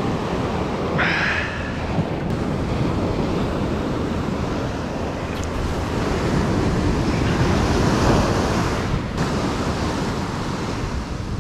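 Ocean surf washing up on a sandy beach, with wind buffeting the microphone as a steady low rumble. A brief higher-pitched sound comes about a second in.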